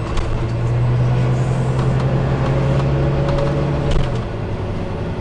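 Volvo B9TL double-decker bus engine heard from inside the lower deck: a loud, steady low drone that drops away about four seconds in, with a short sharp sound at that point.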